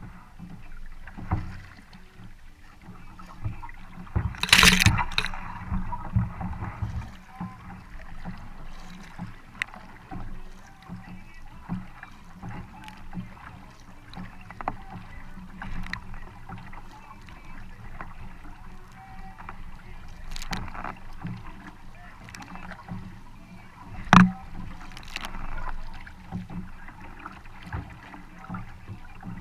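Kayak paddling: a double-bladed paddle dipping and splashing in the water on alternating strokes, with small knocks and water noise from the hull. Two louder sudden hits stand out, one about four seconds in and one about five seconds before the end.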